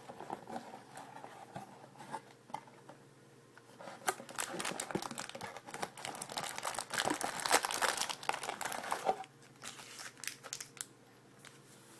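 Plastic wrapping on a box of hockey trading cards crinkling and tearing as it is opened, with a dense burst of crinkling in the middle and lighter crackles before and after.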